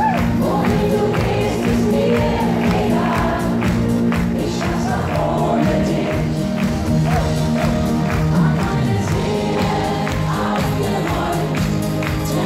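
Live Schlager band music: a steady drum beat under singing with a backing choir.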